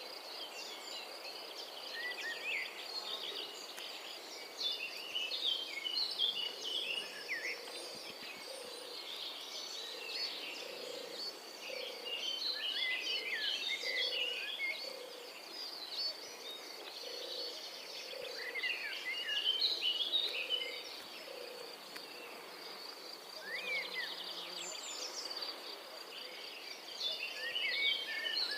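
Outdoor ambience of many small birds chirping over a steady high insect trill. Through much of the middle, a low call repeats about once or twice a second.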